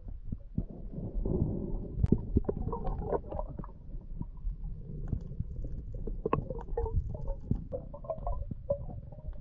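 Underwater sound picked up through a diver's camera housing: a muffled low rumble of moving water with scattered clicks and knocks throughout.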